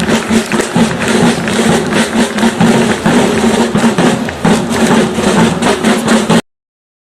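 Military drummers playing a drum call: rapid snare and bass drum beats over a steady low tone. The sound cuts off abruptly about six seconds in.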